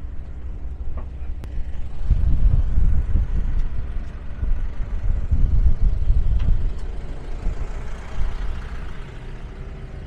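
A heavy engine running with a low steady drone, swelling into a louder rumble for a few seconds in the middle.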